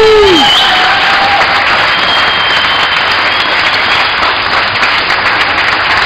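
Audience applauding steadily in a big hall, with one shout falling away at the very start.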